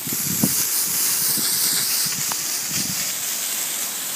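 A jet of water hissing steadily as it sprays across sandy ground, washing sand off newly planted grass plugs.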